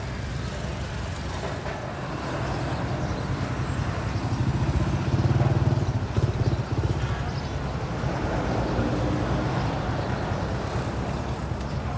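Street traffic: engines of passing road vehicles over a steady low rumble, loudest about five seconds in, with another passing a few seconds later.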